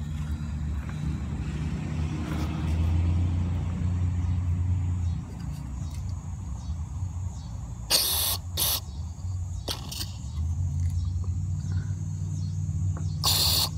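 Aerosol carburetor cleaner sprayed in short hissing bursts into a carburetor's fuel inlet, twice in quick succession about eight seconds in and again near the end. A steady low rumble runs underneath.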